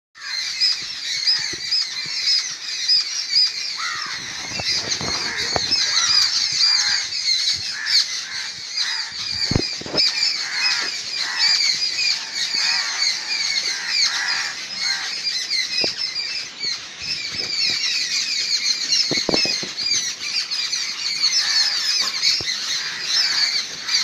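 A flock of crows calling harshly in a dense, nonstop chorus as they mob an owl. A few dull knocks are heard about ten seconds in and again later.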